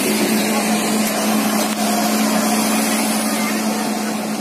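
Boat engine running steadily: a constant low hum under a loud rushing noise.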